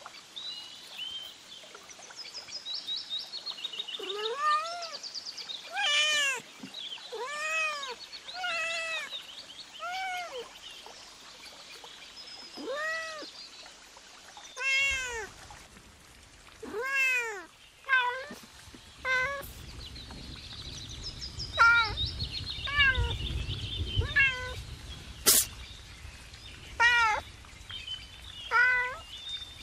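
A kitten meowing over and over: short mews that rise and fall in pitch, about one every second or so. Between them come faint high chirps, the peeping of a chick.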